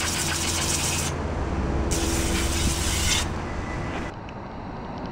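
Garden hose trigger spray nozzle spraying water onto steel car-body brackets, rinsing off the molasses used to de-rust them. The hiss of the spray cuts out about a second in, comes back, and stops about three seconds in.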